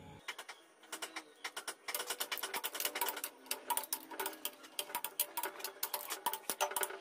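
Ratchet wrench clicking rapidly as the main bearing cap bolts of a Mitsubishi 4D56 engine block are run down, with a faint metallic ring. The clicking starts about a second in and is steady and louder from about two seconds.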